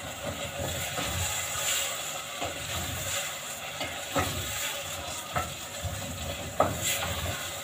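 Spoon stirring a stew of carrots and peas in a steel saucepan on a gas burner, over a steady sizzle, with three sharp knocks of the spoon against the pot in the second half. The stew is stirred so it does not stick to the pan.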